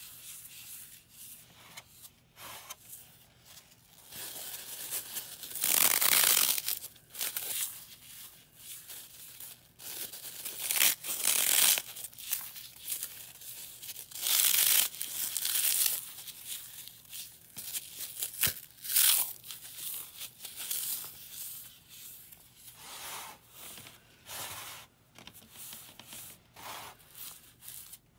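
Dry floral foam, dusted with gym chalk and baby powder, being crushed and crumbled between the fingers. It gives irregular crackly crunching in bursts, with louder squeezes a few seconds apart.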